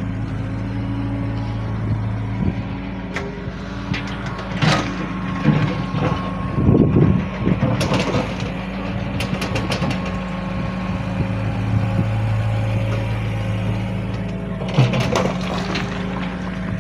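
Excavator engine running steadily, with scattered clanks and knocks; the loudest cluster comes about seven seconds in.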